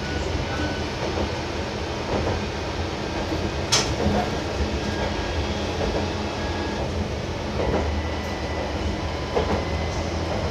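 Diesel railcar running along single jointed track, heard from inside the cab: a steady engine hum with wheel clacks at rail joints every second or two. The sharpest click comes about four seconds in.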